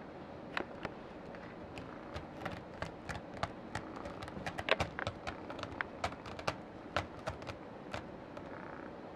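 Kitten's claws scratching and catching on a sisal-rope scratching post: an irregular run of short scratchy clicks, densest in the middle.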